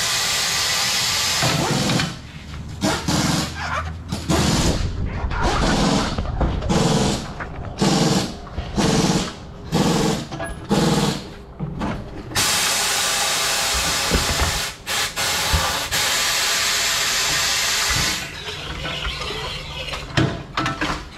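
Air hissing out of the valve stem of a 42-inch Nitto tire as it is deflated. The hiss is steady at first, then comes in a run of short spurts about once a second, then runs steady again before tailing off.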